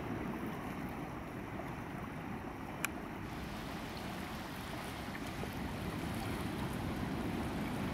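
Steady, deep rush of wind on the microphone mixed with a shallow river flowing over a gravel bar, with one sharp click about three seconds in.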